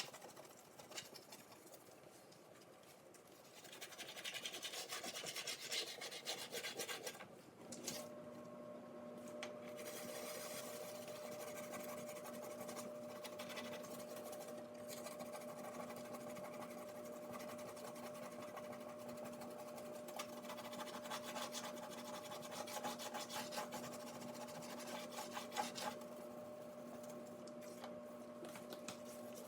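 A wet dishwasher tablet rubbed back and forth over greasy oven-door glass, a scratchy rasping scrub that comes and goes in bursts. A steady hum starts about eight seconds in and runs under the scrubbing.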